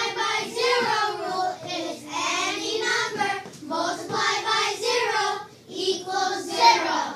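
A class of third-grade children singing together in unison, in phrases of about two seconds with short breaks between them.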